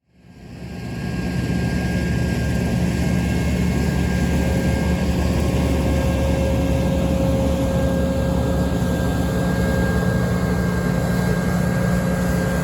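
Deutz D 4506 S tractor's air-cooled three-cylinder F3L912 diesel running steadily. It fades in over about the first second, then holds an even drone with a few steady higher tones over it.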